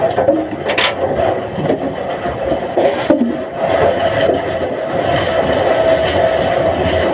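Log-handling and debarking machinery running, with wood scraping and rubbing over a steady hum and a couple of sharp knocks as logs are moved.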